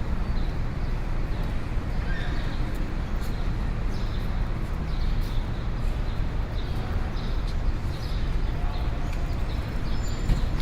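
Street ambience: a steady low rumble of traffic, with short high-pitched chirps and clicks scattered irregularly through it.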